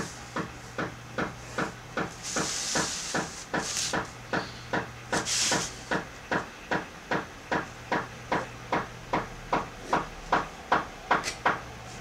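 Steady ticking, about two and a half ticks a second, which stops suddenly at the end. Between about two and six seconds a few short scratchy hisses are heard, typical of a broad calligraphy pen dragged across paper.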